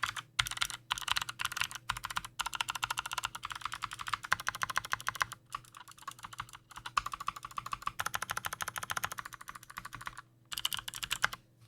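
Fast typing on a mechanical keyboard with lubed Kailh Speed Bronze clicky switches and pudding keycaps: rapid runs of sharp clicks in bursts, broken by short pauses.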